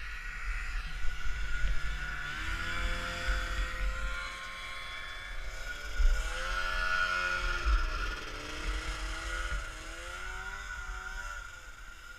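Vintage Ski-Doo snowmobiles' two-stroke engines revving, the pitch rising and falling several times as the sleds speed up and ease off.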